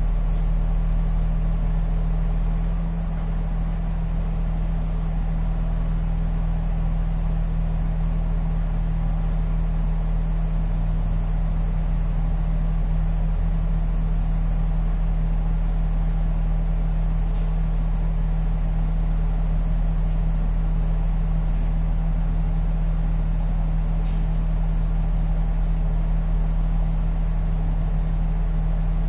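City bus engine idling with a steady low hum, heard from inside the cabin while the bus stands still.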